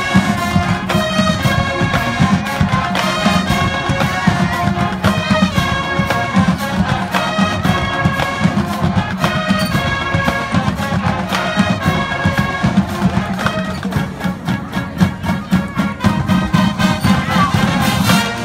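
High school marching band playing live: brass chords over a steady drum beat.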